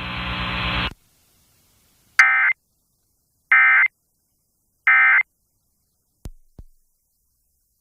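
Emergency Alert System end-of-message signal: three short bursts of screechy digital data tones about a second and a half apart, after a steady electrical buzz cuts off about a second in. Two faint clicks follow.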